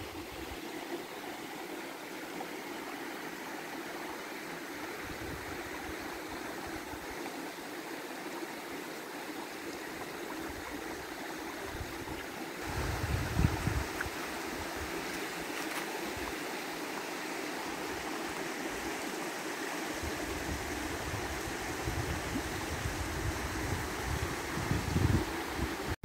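Shallow stream running over stones and pebbles, a steady rush and babble of water. A low rumble comes in at times in the second half, with a brief loud peak about halfway through.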